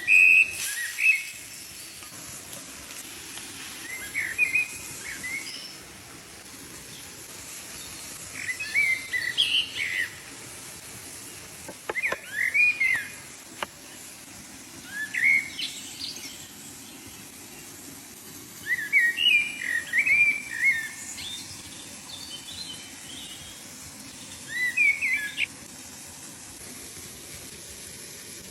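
A bird singing short chirping phrases, a burst every three to four seconds, over a steady faint background hiss.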